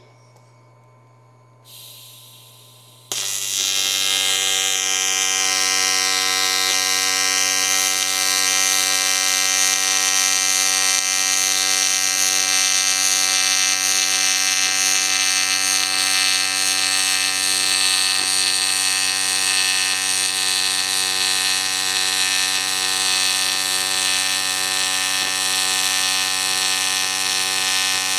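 AC TIG welding arc on aluminum with the machine's adjustable amplitude turned off: a short hiss about two seconds in, then the arc strikes a second later and runs as a steady, loud buzz for the rest.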